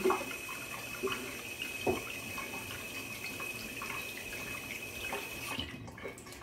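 A kitchen faucet runs steadily into a stainless steel sink, with a thin steady whistle, and is shut off near the end. There are a few light knocks in the sink.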